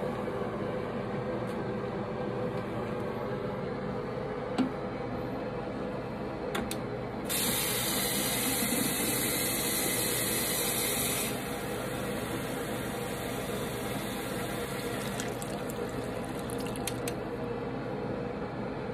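Tap water running from a bathroom faucet into a plastic bottle, filling it with a steady rush. It grows louder and brighter for about four seconds a little before the middle.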